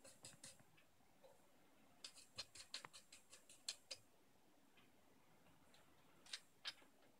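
Faint, irregular small clicks and ticks of hands handling small parts and cable connectors on a workbench: a few near the start, a quick run of about a dozen between two and four seconds in, and two sharper clicks near the end.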